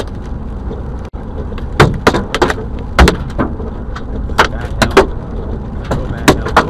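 Hailstones striking the car's windshield and body in loud, irregular clacks, about a dozen of them, over the steady noise of the car driving on a wet road in the storm.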